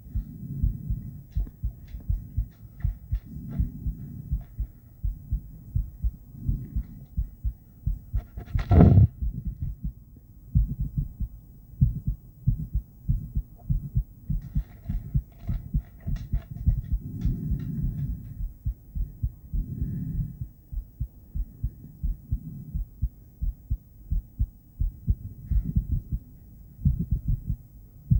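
A woman's heartbeat picked up through a handheld ultrasonic device: a steady, rapid run of short low pulses. A louder, brief noise breaks in about nine seconds in.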